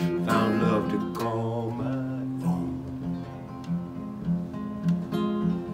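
Steel-string acoustic guitar playing a steady folk accompaniment, with a man's sung line trailing off in the first two seconds or so, then the guitar alone.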